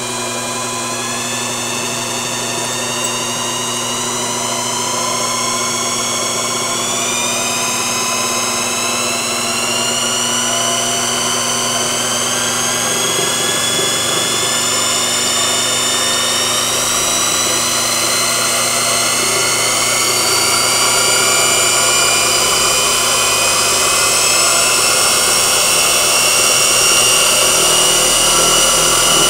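Brushed electric motor running a belt-driven generator, its whine climbing slowly and steadily in pitch and getting a little louder as it is pushed to higher speed. The generator is loaded more and more while charging a battery.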